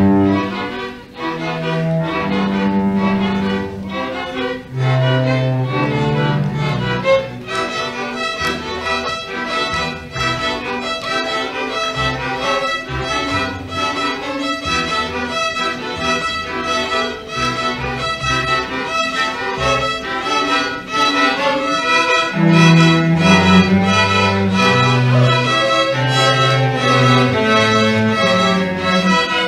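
High school string orchestra playing, with cellos and basses on low notes beneath the violins. The upper strings come in fuller and brighter about seven seconds in, and the low notes grow stronger about two-thirds of the way through.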